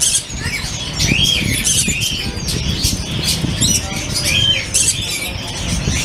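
Many caged small birds chirping and squawking at once, short calls overlapping throughout, over a steady low rumble.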